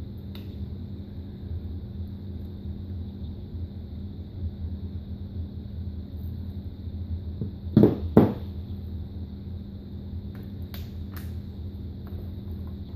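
Steady low electrical hum of a small room, with a few light clicks and rustles from hands tucking servo wires into an RC plane's wing. Two short, loud sounds come close together about eight seconds in.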